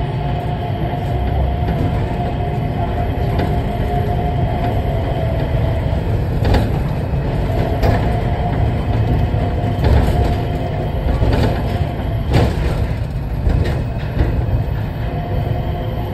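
Changi Airport Skytrain, a rubber-tyred automated people mover, running along its elevated guideway, heard from inside the car: a steady low rumble with a faint whine. A few sharp knocks come through in the second half.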